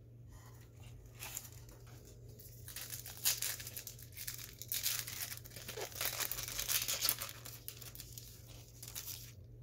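Foil wrapper of a Topps Big League Baseball trading-card pack being crinkled and torn open by hand. The crackling comes on and off, loudest in the middle seconds.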